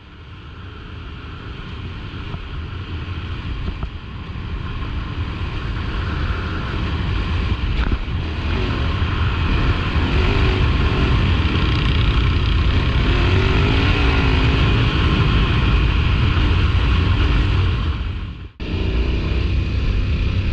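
Trail motorcycle engines running, fading in and growing louder over the first several seconds, then holding a steady level with the pitch wavering as the throttle changes. The sound cuts out briefly near the end and comes straight back.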